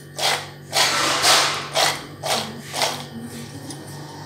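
Fried cashew nuts clattering and rustling against a glass bowl as they are tossed to coat them in spices. The swishes come in repeated strokes, about two a second, and fade near the end.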